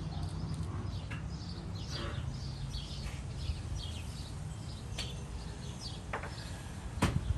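Small birds chirping in short, high calls repeated several times a second over a steady low hum, with a couple of sharp clicks near the end.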